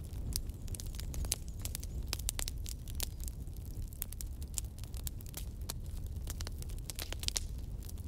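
Firewood burning in a bonfire, crackling with many irregular sharp snaps and pops over a low steady rumble.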